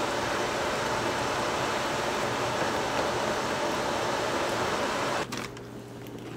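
Steady hiss from the stovetop as pizza sauce cooks in a frying pan, cutting off suddenly about five seconds in.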